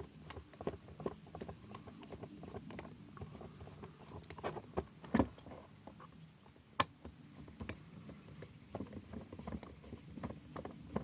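Hands handling small plastic parts: an irregular run of light clicks and taps, with a few sharper clicks around four and a half, five and seven seconds in.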